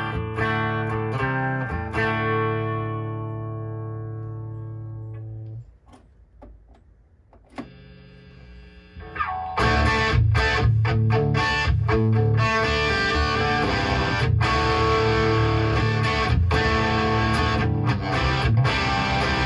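Electric guitar through a hand-wired Marshall 2204-style (JCM800) 50-watt tube head. A chord is struck and left to ring out and fade, a quieter single note follows, then about ten seconds in comes loud, heavily distorted rock riffing on the amp's high input.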